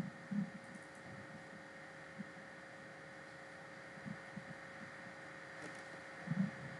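Faint steady electrical hum and hiss of the recording, with a thin steady tone, broken by a few soft low thumps.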